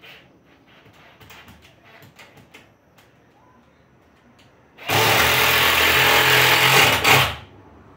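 Cordless drill running under load into a pine seat board for about two and a half seconds, starting and stopping abruptly. Before it come a few light clicks and knocks as the drill and screw are set in place.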